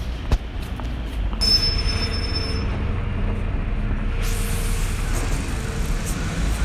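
City street traffic heard while walking, with a heavy low rumble of wind on the phone microphone. A brief high-pitched squeal, like vehicle brakes, comes about a second and a half in.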